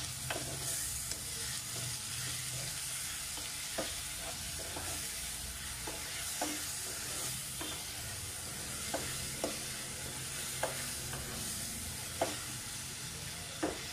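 A spatula stirring a frying mixture of chopped tomatoes, onions and cashews in a nonstick pan: a steady sizzling hiss with irregular clicks of the spatula against the pan.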